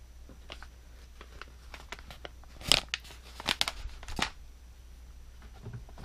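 Packaging crinkling and crackling as a flat green package is handled and laid down on a table, with a cluster of sharp crackles in the middle, then a faint soft knock near the end.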